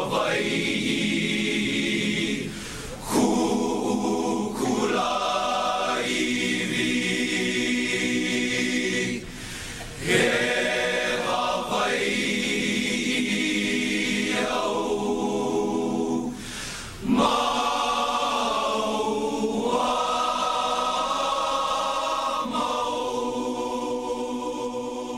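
Choir singing long held chords in phrases a few seconds long, with short breaths between them, fading out near the end.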